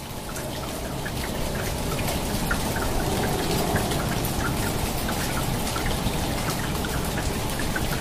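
Rain falling on rainforest foliage: a steady hiss of rain with many separate drops pattering on leaves. It swells up over the first couple of seconds, then holds steady.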